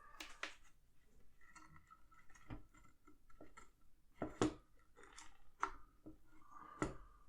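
Faint scattered clicks and taps of a single-board computer and its power cable being handled and plugged in, with the sharpest ticks about four and a half seconds in and again near the end.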